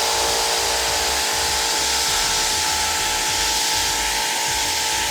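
Electric pressure washer running steadily, its motor whine under the hiss of the water jet rinsing a pre-wash shampoo off car paint.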